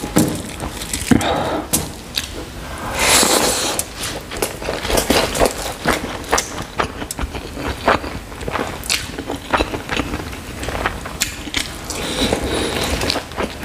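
Close-up eating sounds: fingers mixing rice and chicken curry on a plate, then chewing, with many short clicks throughout and denser stretches about three seconds in and near the end.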